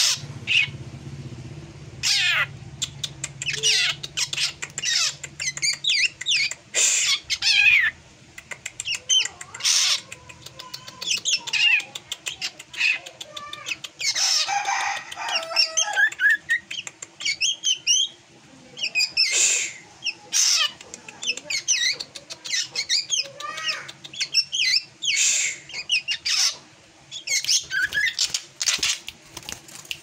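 Caged drongo singing a varied, unusual song: quick whistled notes that sweep up and down, mixed with harsh rasping calls, with one longer harsh call about halfway through.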